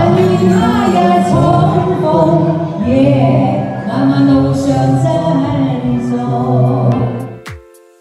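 A man and a woman singing a duet into handheld microphones, with music under their voices; the song breaks off near the end.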